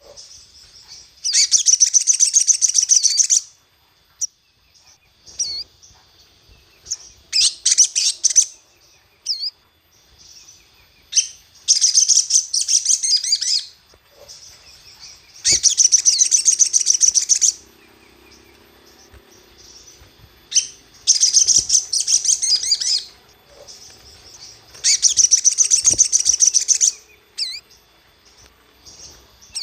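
Crimson sunbird (sogon) song: bursts of rapid, high-pitched twittering about two seconds long, repeated about every four seconds, with short single chirps in between.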